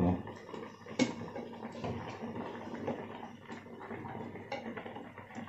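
A spatula stirring boiled fish and broth in a metal pan on a gas stove: one sharp tap against the pan about a second in and a few lighter clicks later, over a steady soft hiss of the simmering pan.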